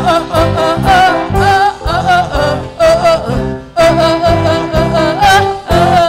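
A band playing a children's praise song: voices singing over drums, guitars and keyboard with a steady beat.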